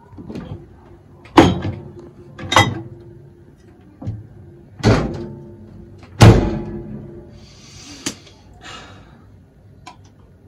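A series of heavy thumps or slams at uneven intervals, four strong ones with the loudest about six seconds in, and a couple of lighter knocks between them.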